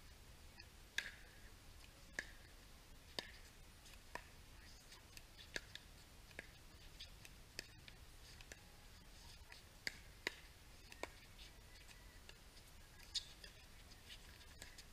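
Pickleball rally: sharp pops of paddles striking the hollow plastic ball, roughly once a second, some a little louder than others.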